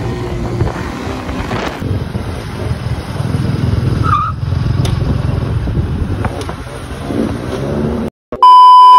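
Motorcycles riding along a highway: steady engine and road noise with wind. Near the end the sound cuts out for a moment, then a loud, steady electronic beep about a second long comes in.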